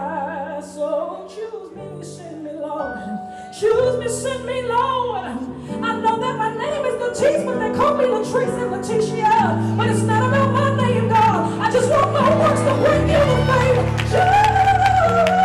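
A woman's gospel vocal sung live over sustained backing chords, building in loudness with wavering, ornamented phrases. She holds a long high note near the end.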